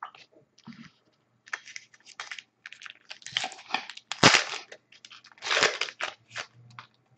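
A trading-card pack wrapper being torn open and crinkled by hand, with the cards inside handled: irregular crinkling and crackling, and one sharp crackle about four seconds in.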